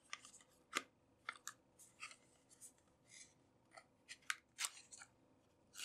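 A small cardboard box being handled and opened by hand: a string of faint ticks and scratchy scrapes as the card is turned and worked open, with a longer scrape near the end.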